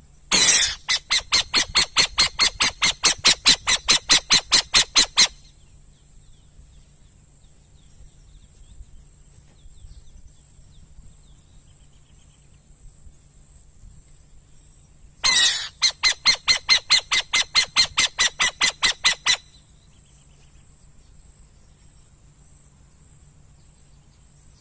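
Owl calling: two bouts of rapid, evenly spaced harsh notes, about five a second, each opening with a longer harsh note. The first bout lasts about five seconds; the second comes about ten seconds later and lasts about four.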